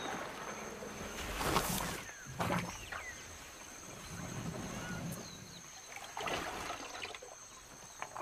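Forest elephants at a muddy salt lick: wet sloshing and splashing in mud and water, with a few louder noisy blasts, the loudest about a second and a half in. A steady high-pitched tone and a few short chirps run behind them.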